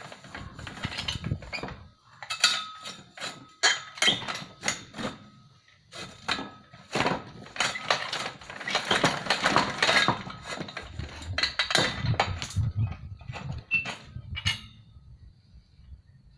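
Homemade hand-cranked sheet-metal rolling machine with chain-driven rollers being turned by hand: a string of irregular metallic clanks and knocks, stopping about a second and a half before the end. The machine is dry and stiff from years of disuse.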